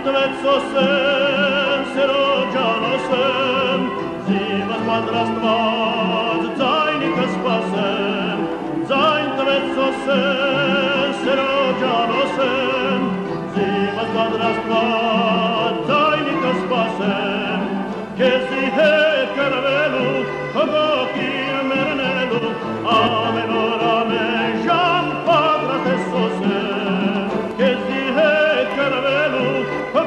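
A male singer sings an Armenian folk song with wide vibrato, backed by a folk instrumental ensemble; the vocal line pauses briefly several times between phrases.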